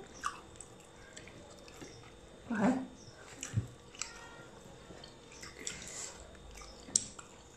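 Quiet eating sounds of people chewing food eaten by hand: scattered wet lip smacks and mouth clicks, with a short low voiced sound about two and a half seconds in.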